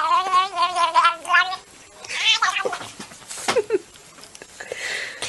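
A cat yowling: one long, wavering call over the first second and a half, followed by shorter, noisier sounds and a few clicks.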